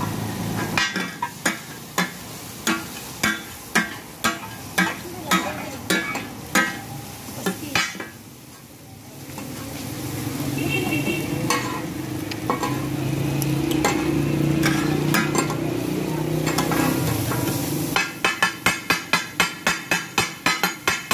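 Flat metal spatulas striking a hot steel griddle, chopping mutton offal for takatak (kata-kat) over a frying sizzle: sharp clangs about two a second at first, then a pause with a steady low rumble, then quicker chopping, about four strikes a second, near the end.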